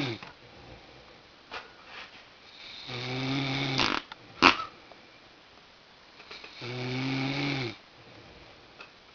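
A sleeping man snoring, each snore about a second long with a deep pitched tone, coming about every three and a half seconds. A sharp click sounds between snores, a little before the middle.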